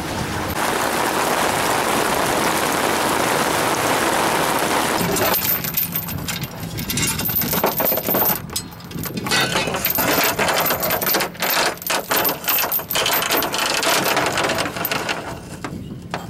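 Steady rushing noise for the first few seconds, then a fluke anchor's metal chain rattling and clinking in quick, irregular clatters against the jon boat's side as the anchor is handled and put over.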